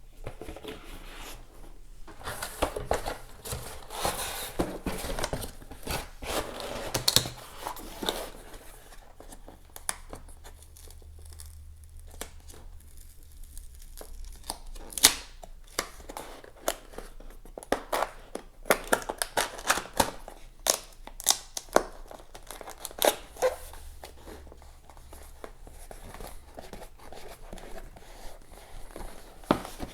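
Packaging being handled: tearing and crinkling of wrapping, with scattered sharp clicks and knocks, the clicks coming thick and fast in the second half.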